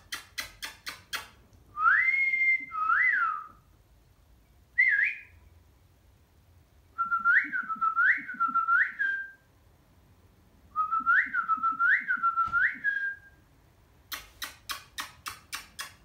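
Cockatiel making a quick run of kissing smacks, then whistling: a rising note and two short up-and-down notes, a brief chirp, and twice a phrase of three rising swoops. Near the end comes another fast run of kissing smacks.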